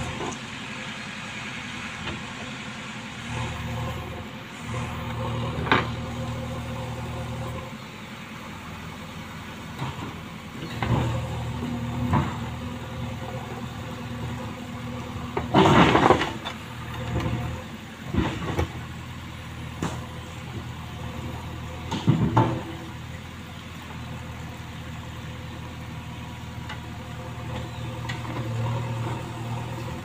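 JCB 3DX backhoe loader's four-cylinder diesel engine running steadily while the machine, stuck in mud, works its backhoe arm against the ground, with several loud clanks and knocks from the arm and bucket, the loudest about halfway through.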